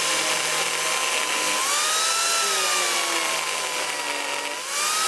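Angle grinder fitted with an Arbortech Mini Turbo cutter, running and cutting around the end grain of a log to shape a tenon, over a hiss of chipping wood. The motor's whine rises as the cut eases, about a second and a half in and again near the end, and sags back as the cutter bites.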